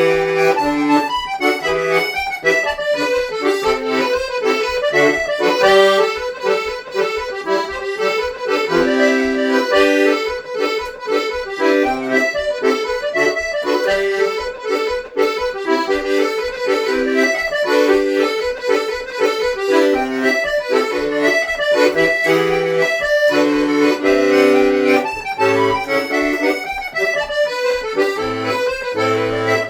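Accordion playing a lively Irish traditional tune solo, a fast melody over short bass notes.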